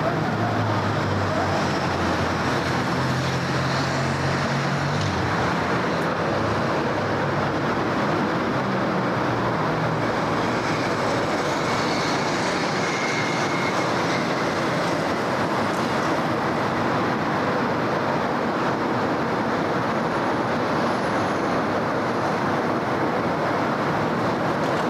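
Steady city street traffic noise: a continuous wash of passing cars and other vehicles, with a low engine hum in the first few seconds.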